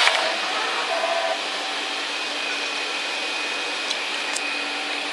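YAG laser cutting machine cutting 6 mm steel plate: a steady hiss of gas and cutting at the nozzle with a faint steady hum underneath, a little louder for the first second or so before settling.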